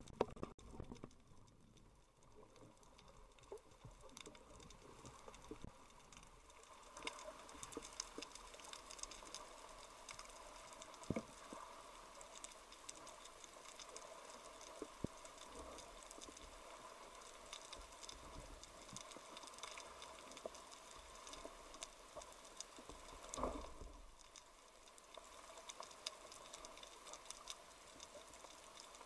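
Faint underwater ambience picked up by a camera mounted on a speargun: a steady crackle of many tiny scattered clicks, with one sharper click about eleven seconds in and a brief low thud a little before the end.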